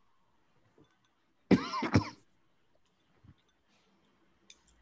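A person clears their throat once, a short two-part sound about a second and a half in. A few faint clicks near the end.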